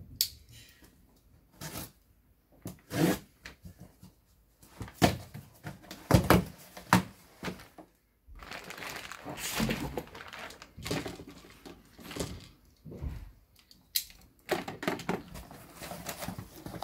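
Crumpled packing paper and plastic rustling and crinkling as hands dig into a cardboard box and pull items out, with a few sharper knocks of handling. It comes in separate bursts at first and then as steadier rustling through the second half.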